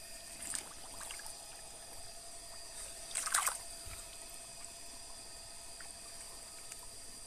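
Faint trickling of shallow muddy water, with one short, louder wet squelch about three seconds in as a climbing perch is pulled out of the mud by hand.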